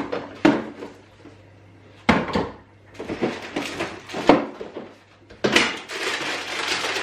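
Rummaging through a low kitchen cupboard: kitchen things knocking and clattering as they are moved about. There are a few sharp knocks in the first half second and again about two seconds in, then near-continuous clatter.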